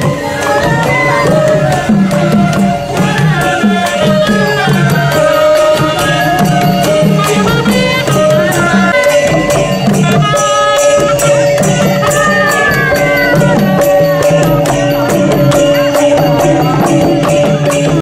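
Northern Thai folk procession ensemble playing on the march: plucked lutes and a held melody line over a repeating drum beat, with sharp percussion strokes on top.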